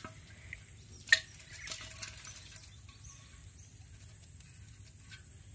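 Small clicks and rustling of prawns and small fish tipping out of a woven bamboo fish trap into an aluminium pot, with one sharp knock about a second in.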